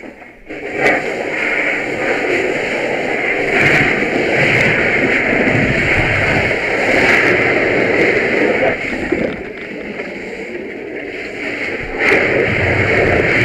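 Fire hose nozzle flowing water onto the fire: a loud, steady rush that eases for a couple of seconds late on and then opens up again.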